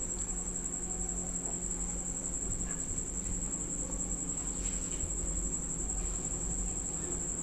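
Steady, high-pitched trill of a cricket, unbroken throughout, over a low steady hum.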